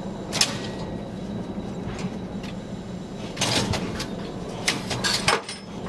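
Scattered gunshots: one about half a second in, then several more in irregular succession from about three and a half seconds, over a steady low drone.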